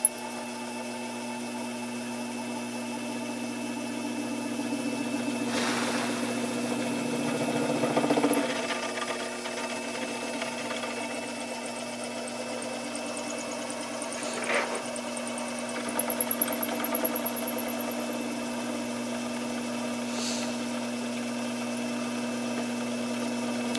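Sherline vertical mill with its end mill cutting a slot through a metal workpiece: a steady machine hum with a few short clicks. About two-thirds of the way in, a rapid pulsing vibration sets in, most likely due to the Y-axis not being locked.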